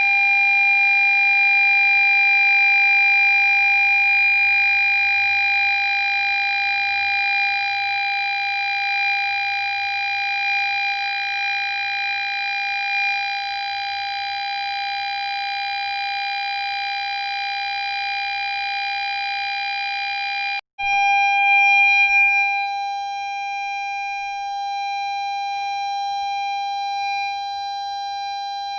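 Ford Fiesta parking-sensor buzzer sounding one continuous steady tone instead of separate beeps, the signal that an obstacle is at the closest range. The tone drops out for a split second about two-thirds of the way through and then carries on.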